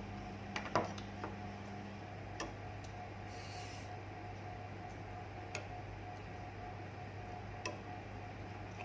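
Quiet eating: a few scattered light clicks, about four over the stretch, with a steady low hum underneath.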